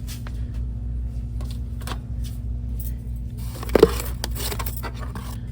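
Packaged items rustling and clicking as they are handled, over a steady low electrical hum. About four seconds in there is one brief loud sound.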